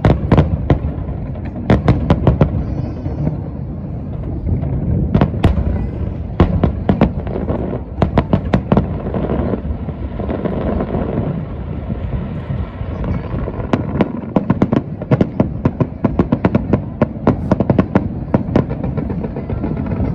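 Aerial fireworks barrage: shells bursting in rapid succession, many sharp bangs close together over a continuous low rumble, with thick runs of quick cracks in the middle and again later on.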